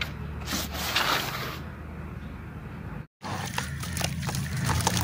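A hand rubs and crumbles dry, gritty sand-cement mix, a rough rustling that is loudest in the first second or so. After an abrupt cut about three seconds in, crumbled cement falls into water with many small crackles and light sloshing.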